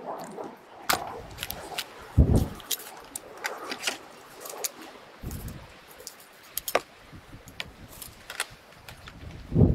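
Knife cutting into a sturgeon head's skin and cartilage: scattered sharp clicks and crunches, with a few dull thumps, the loudest about two seconds in and near the end.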